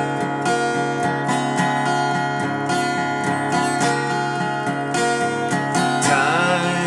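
Steel-string dreadnought acoustic guitar strummed in a steady rhythm. About six seconds in, a man's voice comes in singing over it.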